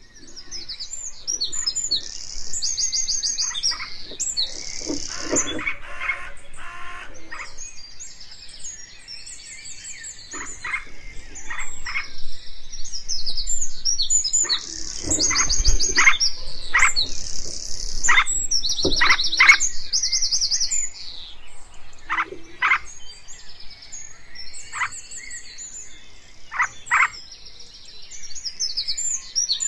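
Morning chorus of many songbirds singing at once: fast high trills and chirps overlapping throughout, with sharp, repeated falling call notes standing out every few seconds.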